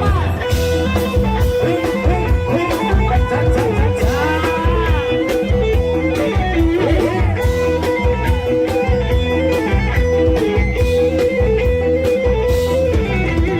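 Thai rot hae parade band playing loud amplified music: a heavy, steady drum and bass beat under a plucked electric lead that bends its notes over a long-held drone note.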